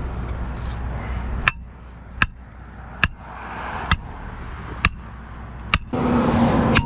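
A sledgehammer striking the top of a metal sign post to drive it into the ground: six sharp blows, evenly paced a little under one a second, each with a short metallic ring.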